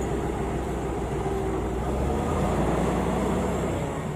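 Diesel engine of a Plasser & Theurer track maintenance machine running steadily, freshly restarted after being shut down. About two seconds in its pitch shifts and it runs a little louder.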